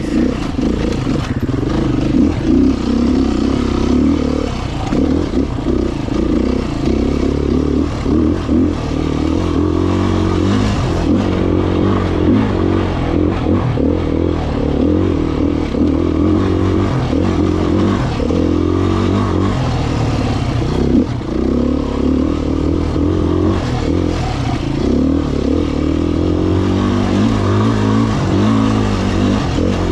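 2018 Beta 500RR dual-sport dirt bike's single-cylinder four-stroke engine running under way on a trail ride, its pitch and level rising and falling as the throttle is opened and rolled off.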